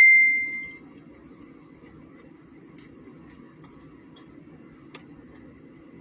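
The fading ring of a sharp clink or ding, one clear tone with overtones, dying away within the first second. After it, a faint steady low hum with a few faint ticks.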